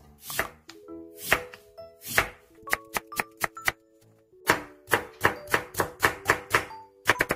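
Kitchen knife slicing white radish (mu) on a bamboo cutting board, each cut ending in a sharp knock on the board. The first few cuts come about a second apart, then from about halfway the strokes fall into a steady run of about three a second. Background music with held notes plays under it.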